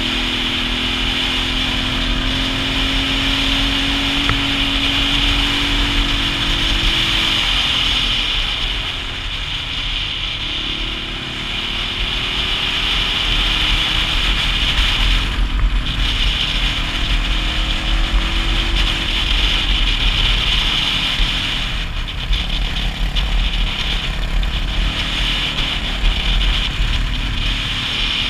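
Single-cylinder dual-sport motorcycle engine running at road speed, with steady rushing noise; the engine pitch drops as it slows about eight to eleven seconds in, then climbs again as it accelerates.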